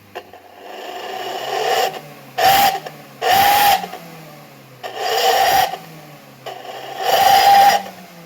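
Suzuki Carry Futura's petrol engine blipped about five times through an aftermarket SUOS 'ngorok' muffler, each rev a raspy growl that drops back to idle between blips.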